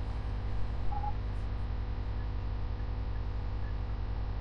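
Steady low electrical mains hum with a background hiss, with a faint short tone about a second in.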